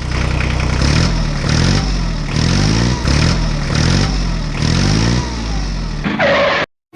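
Tractor engine sound repeatedly revving up and falling back in pitch, about once every 0.7 seconds, then cut off abruptly near the end.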